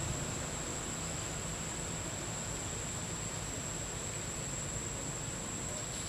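Steady outdoor background ambience: an even hiss with a constant, thin, high-pitched whine held over it, and no distinct events.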